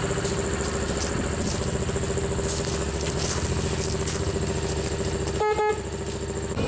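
JZR three-wheeler's Honda CX V-twin engine idling steadily, then a quick double toot of the trike's horn about five and a half seconds in.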